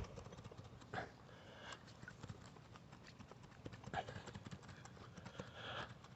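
Irregular clicks, knocks and short scrapes of stones and gravel in a creek bed being dug at to work loose a glass bottle wedged in it.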